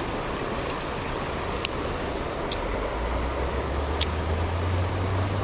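Steady rush of flowing river water, with a low rumble building about halfway through and a few faint clicks.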